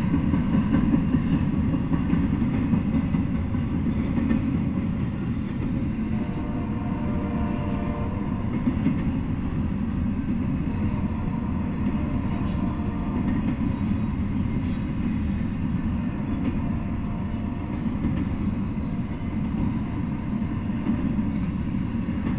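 Double-stack intermodal freight train rolling past, a steady rumble of its steel wheels on the rails and its cars, with a faint steady whine in the first several seconds.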